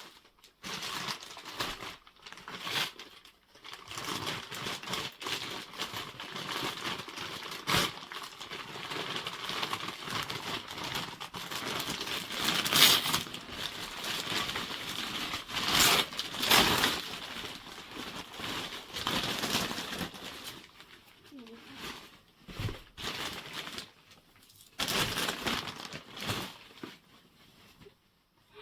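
Gift wrapping being torn open and crumpled by hand: irregular crinkling and ripping, busiest through the first two-thirds, then a few short spurts near the end.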